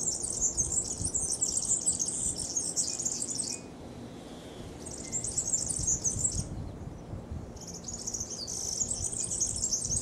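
European serin (verdecillo) singing: three bouts of high, fast jingling song, the first about three and a half seconds long, then two shorter ones after brief pauses.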